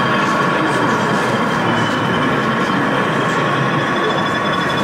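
Sound-equipped O gauge model diesel locomotive's engine sound from its onboard speaker: a steady drone with held high whining tones.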